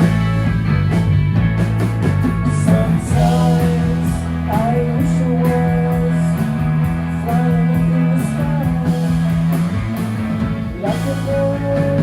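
Rock music with guitar over sustained bass notes and drums, with regular cymbal hits.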